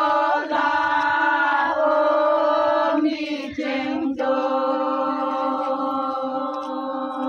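Group of Naga women chanting a traditional festival song in unison, holding long sustained notes that change pitch every second or two.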